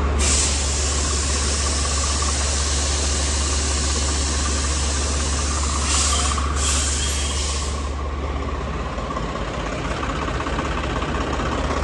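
Air hissing out of a tractor tyre valve as the tyre is let down, cutting out briefly about six seconds in and stopping a second or two later. A Swaraj 855 tractor's diesel engine idles steadily underneath.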